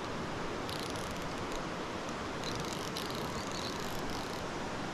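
Steady rush of a fast mountain trout stream. A fly reel's drag sounds in two high-pitched stretches over it, about a second in and again from two and a half to four and a half seconds, as a hooked trout pulls line.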